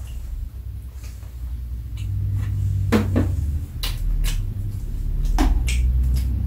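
A thin metal utensil clicking and knocking against a plastic food container and a metal tray, several sharp clicks about halfway through and near the end, over low thudding and rumbling from the table.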